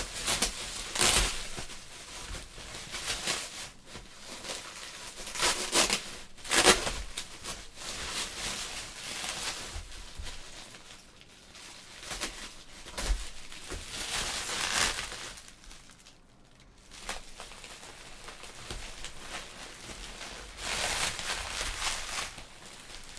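Bubble wrap being pulled off and handled, crinkling and rustling in irregular bursts, with a few sharper tearing sounds.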